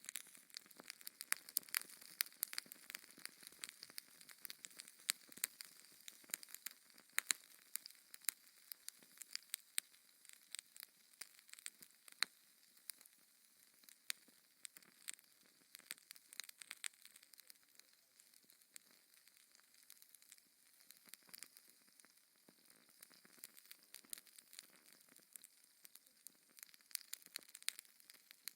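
Wood fire in a fireplace crackling: irregular sharp pops and snaps over a soft steady hiss, thinning out a little in the middle and busier again near the end.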